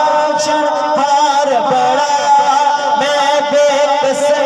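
Group of men singing a devotional naat through microphones and a sound system: a lead voice sings a melodic line while other voices hold steady notes beneath it.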